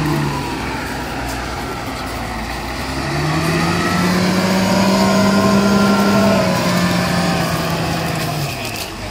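Kawasaki wheel loader's diesel engine running, revving up about three seconds in and holding higher while the bucket is lifted and tipped, then dropping back near the end.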